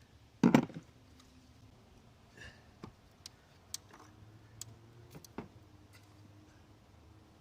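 Ignition coils being handled and set down: one solid knock about half a second in, then a scatter of light clicks and taps.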